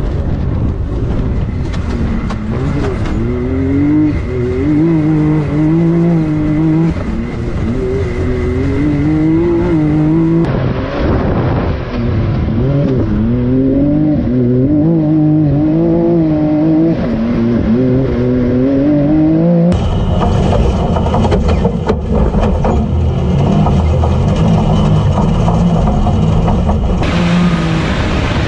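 Off-road UTV engines revving hard at speed, the pitch climbing and dropping again and again as the throttle is worked. The sound changes abruptly about ten and twenty seconds in; the last part, heard from inside the cockpit, is a steadier engine drone.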